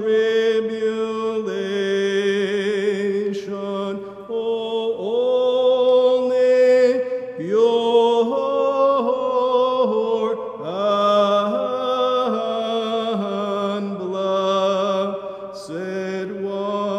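Sung liturgical chant in the Byzantine rite. Voices hold long notes that step up and down in pitch, with a slight waver.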